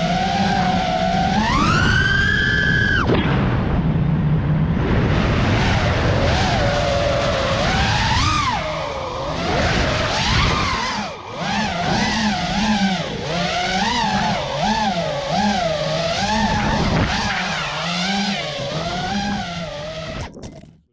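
6-inch FPV quadcopter's brushless motors and propellers, heard from the onboard camera, whining up and down with the throttle: a sharp climb in pitch about two seconds in that drops away a second later, then quick wavering rises and falls through the second half. The sound cuts off just before the end.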